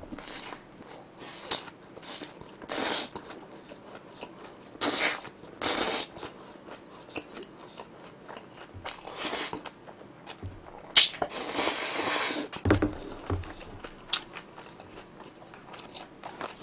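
Eating close to the microphone: slurping and chewing a mouthful of spicy, chewy jjolmyeon noodles eaten with pork cutlet. Several short slurps, then a longer, louder slurp about eleven seconds in.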